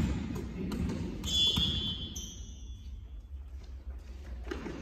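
Indoor volleyball play in a sports hall: a few echoing thuds of the ball in the first second or so, and a brief high squeak about a second in.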